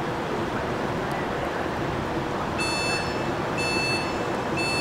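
Train door warning beeps: high, even beeps about a second apart, three of them starting a little past halfway, over a steady background rumble.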